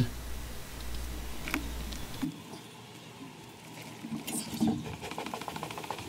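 Quiet scrapes and knocks of a wooden beehive being opened and worked by hand, with one sharp click about one and a half seconds in.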